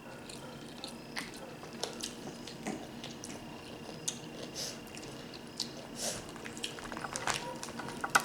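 Wet eating sounds of a seafood boil: chewing and the squish of sauce-covered seafood being handled, with scattered small irregular clicks and crackles.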